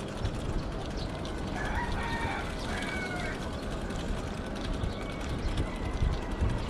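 A rooster crowing once, lasting about a second and a half and starting about a second and a half in, over a steady low rumble of wind and riding noise.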